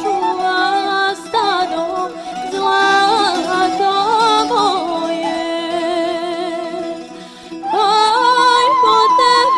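Music with a singing voice: long held notes with vibrato, the melody sliding between pitches. It drops away briefly about seven seconds in, then returns.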